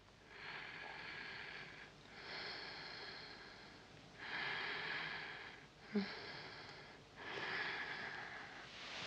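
A woman's slow, laboured, rasping breathing: about five heavy breaths, each lasting a second or more, with short pauses between them. There is a short sharp click about six seconds in. These are the struggling breaths of a woman dying of illness and in pain.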